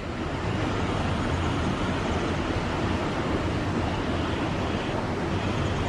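Steady rushing outdoor noise with no distinct events, such as wind buffeting the microphone and flowing river water.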